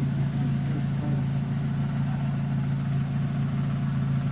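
Mazda Miata's four-cylinder engine idling steadily, heard from inside the open-top cockpit.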